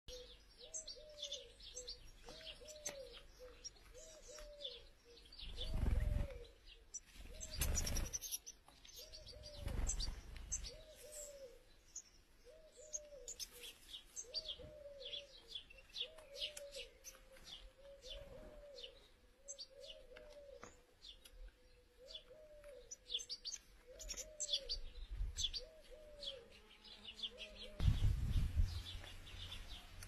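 European goldfinch twittering, with quick high chirps in a continuous stream. A lower call repeats about once a second underneath, and several low thumps come through, the loudest near the end.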